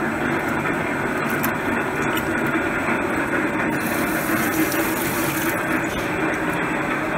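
Steady drone of workshop machinery running throughout. About four seconds in, a brief hiss of water splashing as the plate is moved through a plastic tub of water.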